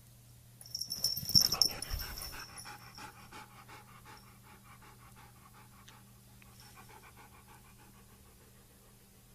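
A dog panting rapidly in quick, even breaths. The panting starts loud about a second in and fades away over the next few seconds.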